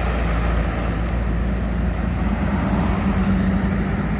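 Diesel engine of a small sugarcane-laden truck pulling up a grade, its low rumble fading as it moves away, with wind on the microphone.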